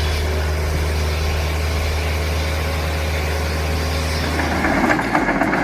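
Heavy machine engine running steadily with a strong low hum. About four and a half seconds in it gives way to a rougher, clattering sound.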